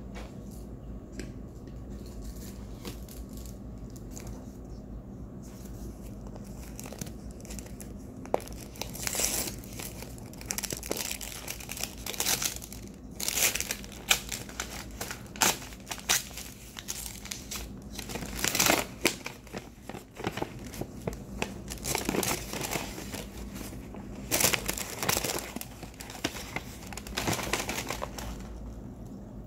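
Packaging being handled, crinkling and rustling in repeated short bursts that start about eight seconds in.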